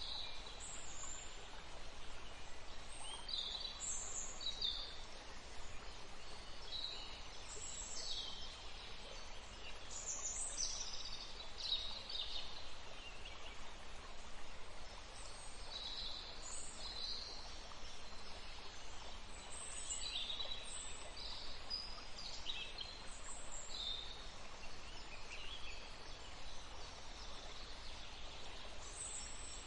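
Small birds singing and chirping, many short high notes one after another, over a steady background hiss.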